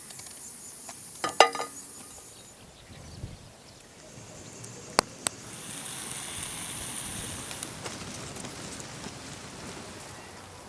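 Outdoor rural ambience with a high, steady insect-like hiss. About a second and a half in there is a short pitched animal call, and a little after the middle come two sharp clicks.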